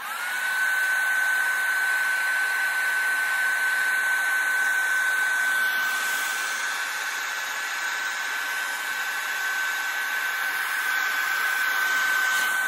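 Handheld hair dryer switched on: its motor spins up in the first moment into a steady high whine over a rush of blowing air, which then runs on unchanged.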